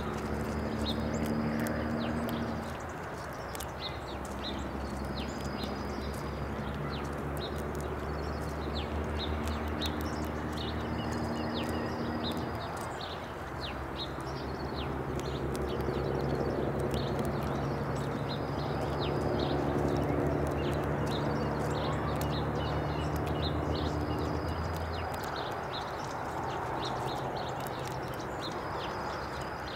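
Dense, rapid crisp clicks of squirrels cracking sunflower seed shells, over a low steady hum that shifts in pitch a few times. A short high note sounds every few seconds.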